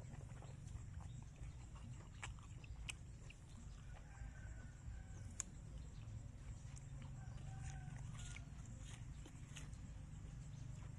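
Faint clucking of chickens over a steady low rumble, with scattered sharp clicks.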